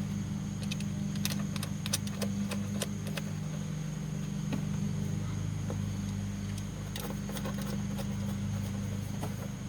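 Scattered light metallic clicks and taps of bolts and hand tools as the bolts are threaded back in and tightened, over a steady low hum.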